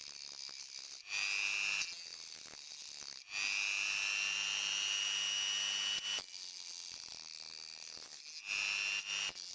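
Handheld rotary tool with a small cutting disc running at a steady high whine, with three louder grinding passes as the disc bites into the metal of a phone board's SIM card reader: a short one about a second in, a longer one of nearly three seconds from about a third of the way in, its pitch rising slightly, and a short one near the end.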